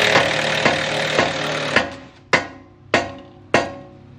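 Dense noise with faint ticks that stops just under two seconds in, followed by sharp knocks about every 0.6 seconds, each ringing on with a held tone.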